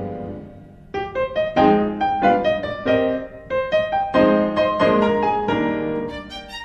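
Background piano music. A held chord fades out, then a melody of single struck notes begins about a second in.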